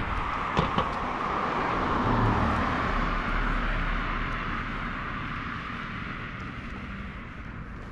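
A car passing on the road, its tyre and engine noise swelling to a peak about two seconds in, then fading as it drives away.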